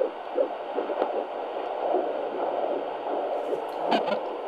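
Unborn baby's heartbeat through a fetal doppler: a fast whooshing pulse over steady hiss. About four seconds in comes a sharp thump, which is taken for the baby kicking.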